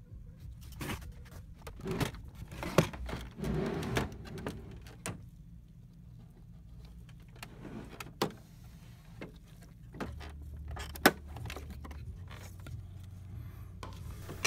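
Scattered plastic clicks and knocks as the printhead and carriage parts of an HP OfficeJet 7612 inkjet printer are handled and lifted out. A low steady hum grows stronger about ten seconds in.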